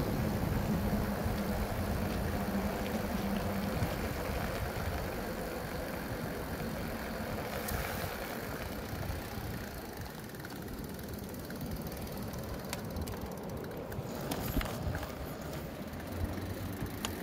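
Riding a bike along a wet road: steady rumble of wind and tyres, with a low steady hum for the first few seconds that then drops away. The rumble eases about halfway through, and a few light clicks come near the end.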